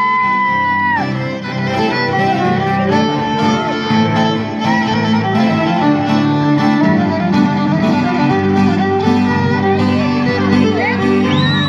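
Live band playing a dance tune, with violin leading and sliding up into long held notes, over plucked strings and a steady accompaniment.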